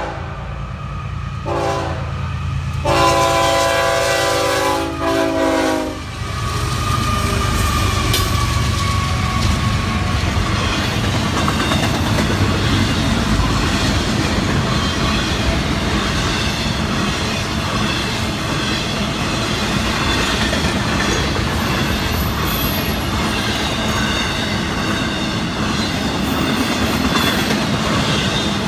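Florida East Coast GE ES44C4 diesel locomotive horn sounding the grade-crossing signal: a short blast, then a long one that ends about six seconds in as the locomotives reach the crossing. After that comes the steady rumble and clickety-clack of a long intermodal freight train's cars rolling past.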